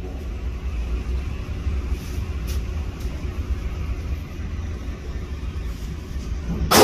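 Steady low rumble of background noise. Near the end comes a single loud shot from a 9mm Glock pistol, ringing briefly in the indoor range.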